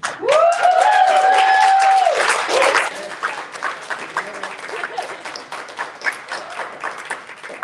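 Audience applauding and clapping. For the first two seconds a single long, loud cheering whoop rises over it, and the clapping eases a little after that.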